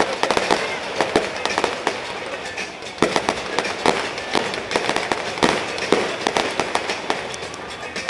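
Fireworks display: a dense run of irregular bangs and crackling bursts, several a second, with no let-up.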